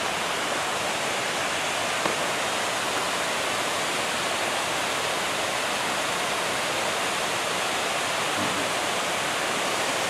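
Water falling from a tall artificial waterfall, spilling over a concrete wall: a steady, even rush of falling water.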